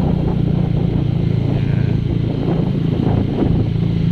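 Motor vehicle engine running steadily with road noise, heard from on board while riding.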